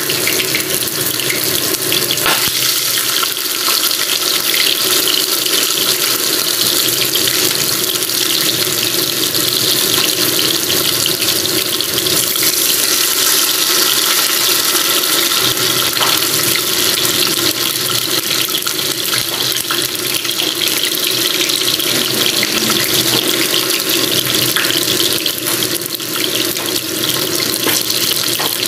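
Milkfish steaks and ginger slices frying in hot oil in a pan: a steady sizzle.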